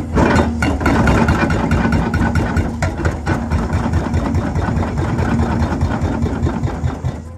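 Hydraulic hammer on a Cat 385C excavator breaking ground in rapid, evenly spaced blows, with the excavator's engine running underneath; the pounding fades near the end.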